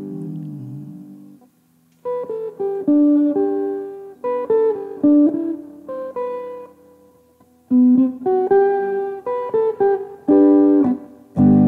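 Guitar playing a hymn introduction. A chord rings out and fades in the first second or so, then picked single notes and short phrases follow, with a fuller chord struck near the end.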